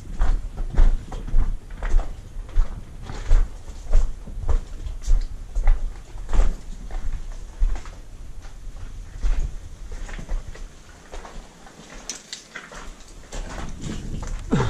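Footsteps crunching and knocking on loose rock and gravel at a steady walking pace, about a step every half second. The steps ease off for a couple of seconds near the end, leaving only small clicks, then pick up again.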